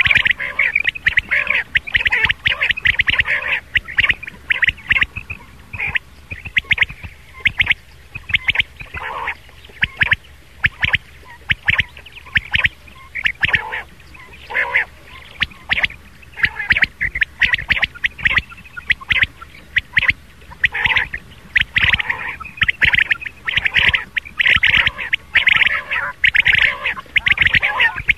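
Recorded rain quail (batair) calls, the kind used as a lure for quail hunting: runs of short, sharp, high notes repeated rapidly over and over, broken by brief pauses.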